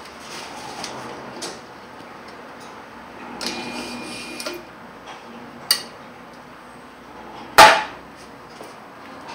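Clicks and rustle of film band being threaded through a YL-200NF automatic film banding machine, with a brief steady whir from the machine lasting about a second around the middle. Near the end comes a loud sharp knock as the machine's front cover is shut.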